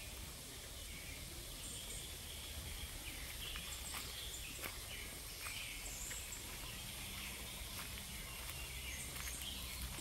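Forest ambience: a steady high hiss with short, faint chirps scattered through it, over a low rumble, with a few soft clicks.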